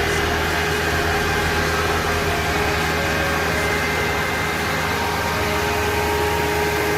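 Steady whirring hum with a constant whine from a running car, the engine going with its added electric cooling fan spinning.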